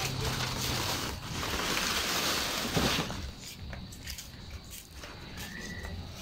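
Dry banana leaves rustling and crackling as they are gathered and handled, densest in the first three seconds and then quieter and patchier.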